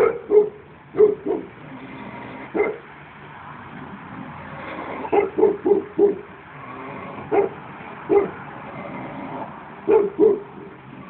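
Old Shar-Pei barking in short single and double barks at irregular intervals, with a quick run of four barks about five seconds in.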